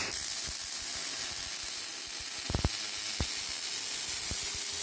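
MAG (gas metal arc) welding arc running on a vertical 3F fillet weld: a steady sizzle with a few sharp crackles about halfway through.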